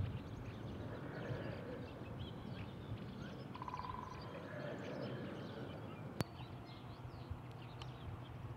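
Small birds chirping and twittering on and off over a faint low rumble, with a single sharp click about six seconds in.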